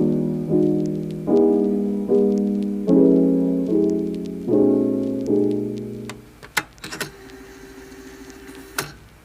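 Background piano music: soft chords struck about every three-quarters of a second, each fading away, then dying out about six seconds in, leaving a quiet stretch with a few brief clicks.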